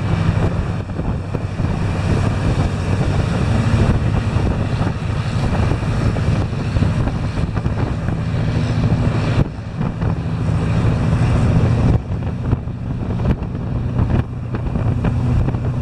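Steady low engine drone and road noise from a moving car following a lorry, with wind on the microphone; the engine sound drops briefly a few times, around the middle and near the end.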